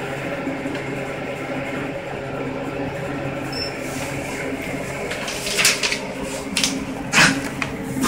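Cash-payout kiosk working after a weigh ticket has been fed in: a steady mechanical hum, then from about five and a half seconds in a few short whirs and rustles as the dispenser pushes out the bills.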